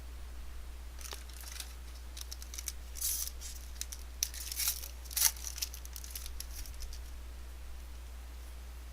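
A trading-card pack wrapper being torn open and crinkled by hand: irregular crackling rips for several seconds, loudest about three to five seconds in.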